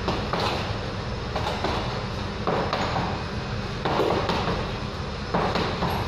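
Boxing-gloved punches landing on an Everlast heavy bag, thuds coming in irregular bunches of one to three hits, over a steady low hum.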